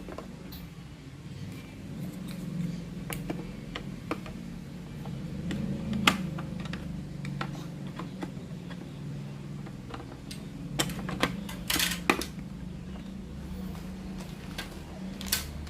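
Scattered small clicks and knocks of hands handling plastic parts while fitting batteries into an RC remote control, with a few sharper snaps about six seconds in and again around eleven to twelve seconds, over a steady low hum.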